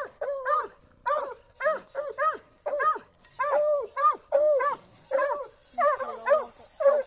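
Coonhounds barking steadily, short rising-and-falling barks about two a second, coming quicker and bunched together near the end.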